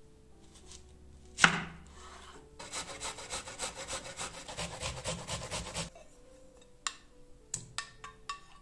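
A single loud knife chop through an onion onto a wooden cutting board, then the onion grated on a stainless steel box grater: a fast, even run of rasping strokes, about six a second, for some three seconds. Near the end, a few sharp clicks as the grated onion is scraped from a ceramic plate into a glass bowl.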